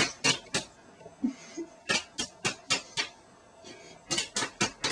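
Sharp hand slaps in quick flurries, three and then two runs of about five, as two people slap at each other in a mock fight.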